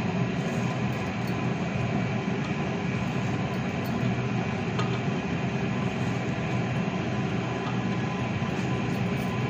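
Steady rumbling noise with a faint hum, unchanging throughout.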